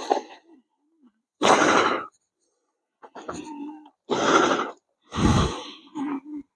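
A few irregular footsteps crunching on gravel.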